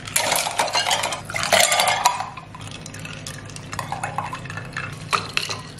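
Gin and soda with ice cubes poured from a tumbler into a wine glass: the ice clatters against the glass and the liquid splashes for about two seconds. Then soda water is poured from a plastic bottle over the ice, more quietly, with a few light clinks near the end.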